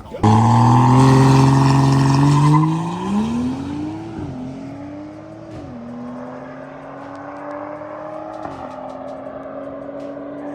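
Car engine starting up loud and steady, then accelerating through the gears: its pitch climbs and drops back at each upshift, about four seconds in, near six seconds and again past eight seconds.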